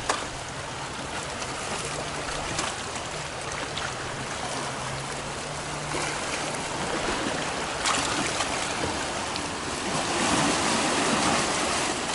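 Small sea waves washing in over rocks and foaming between boulders at the water's edge, swelling louder about ten seconds in. A faint low steady hum runs under it in the first half.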